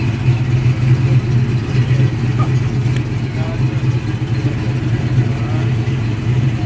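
A vehicle engine idling steadily with a constant low hum.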